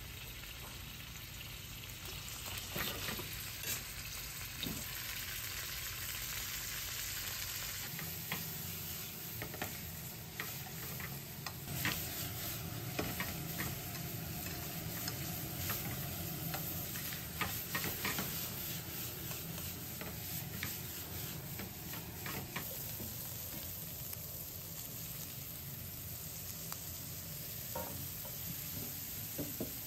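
Beef, garlic and vegetables sizzling in a stainless steel frying pan over a gas flame, with metal tongs clicking and scraping against the pan as they are stirred. The clatter of the tongs is densest through the middle.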